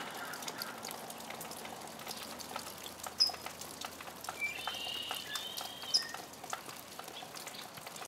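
Light, scattered ticking of tiny hail pellets landing on the ground and nearby surfaces, with a few short bird chirps, the loudest about three and six seconds in.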